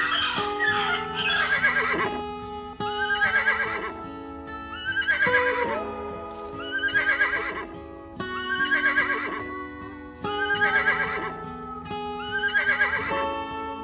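Background music with held chords, over a short wavering whinny, typical of a horse's neigh, repeated at an even beat about every two seconds, some eight times.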